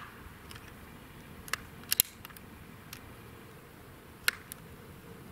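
Sharp clicks from PCP air rifles: a cluster of short clicks about one and a half to two and a half seconds in, another near three seconds, and one louder crack a little past four seconds.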